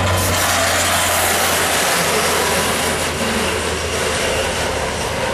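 Customized 1950s Ford cab-over truck doing a burnout as it pulls away: its engine runs hard under a dense hiss of spinning rear tyres that sets in just after the start and carries on steadily.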